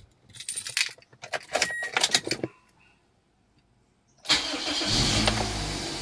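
Clicks and rattles, then near silence, then the Toyota Corolla Altis's four-cylinder engine starts suddenly about four seconds in, flares briefly and settles into a steady idle. It runs on a freshly fitted ignition coil and new spark plugs, replaced to cure a misfire and rough idle.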